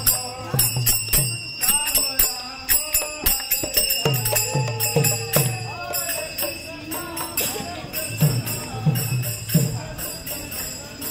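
Devotional kirtan music: hand cymbals ringing in a fast steady beat, deep drum strokes that drop in pitch, and singing voices.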